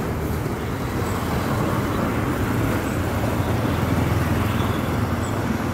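Road traffic passing: cars and an approaching coach bus, a steady low engine drone with tyre noise, a little louder about three to five seconds in.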